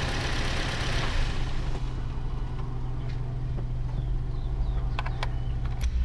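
A 2-litre petrol four-cylinder engine in a 2013 Toyota RAV4 idling with a misfire on number 3 cylinder. There are a few sharp clicks near the end.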